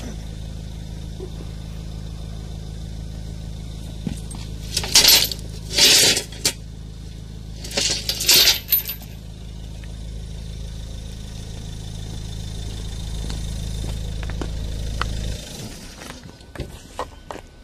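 Three short bursts of clinking, rattling noise about five, six and eight seconds in, over a steady low hum that cuts off about fifteen seconds in.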